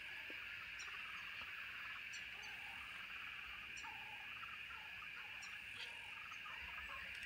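Faint, steady insect chorus, a continuous high hum, with a few faint, short, high chirps scattered through it.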